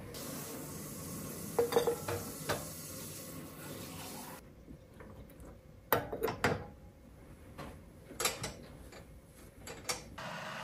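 Dishes and utensils clinking and knocking as they are handled, in several short clusters, over a steady hiss that stops about four seconds in.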